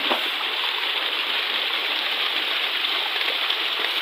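Flowing stream water, a steady rush with no change in level.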